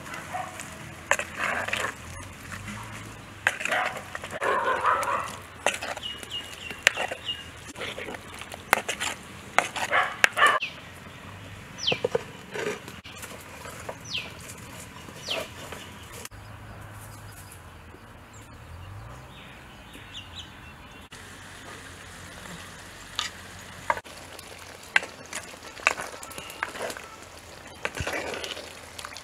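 Coconut-shell ladle stirring curry in a clay pot, scraping and knocking irregularly against the pot, mostly in the first ten seconds and again near the end. In between come a few short, falling whistled bird calls.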